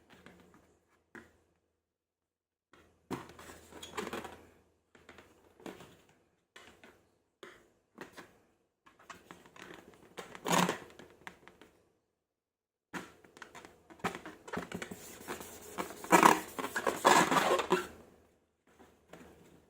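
Slime being handled: irregular sticky crackling and squishing in short bursts with silent gaps between. The sound grows busier and louder in the last third.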